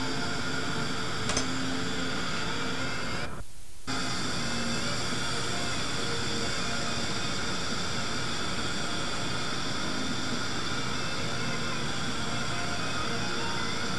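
Dental suction running with a steady hiss and whine, cutting out for about half a second a few seconds in.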